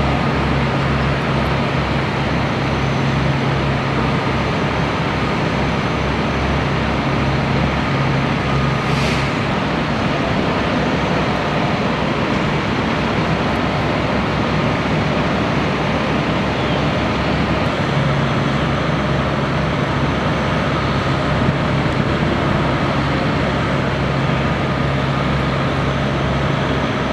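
Steady low drone of fire engines' diesel engines running. A low hum in the drone drops away about nine seconds in and comes back some nine seconds later.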